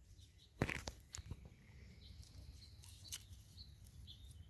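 Faint handling sounds, a few sharp clicks and light rustling, with a few faint high chirps.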